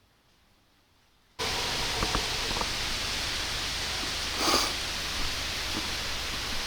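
After a second and a half of near silence, a steady hiss cuts in abruptly, with a few faint clicks and a brief rustle about halfway through.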